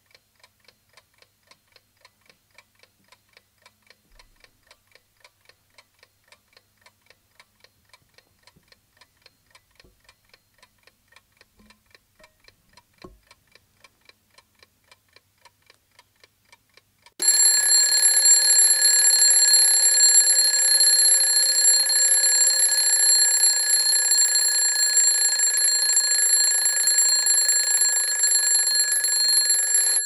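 Mechanical alarm clock ticking steadily at about four ticks a second. About seventeen seconds in, its bell alarm starts ringing loudly and without a break.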